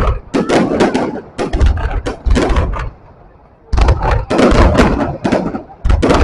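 Fireworks going off in rapid clusters of sharp bangs and cracks with deep thumps, with a short lull about halfway through.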